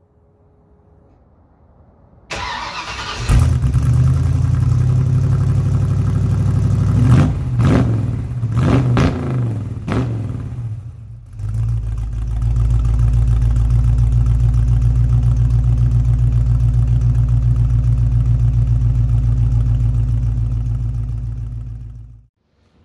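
Car engine cranked and started about two seconds in, blipped up and down a few times, then settling into a steady idle until it cuts off suddenly near the end.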